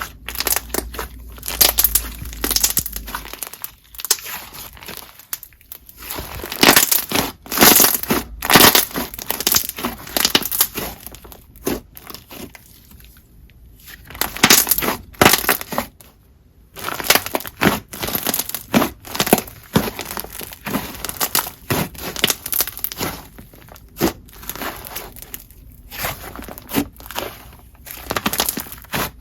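Float slime, pink icy slime under a layer of clear slime, being squished and mixed by hand: dense, irregular crackling and popping with a few short pauses.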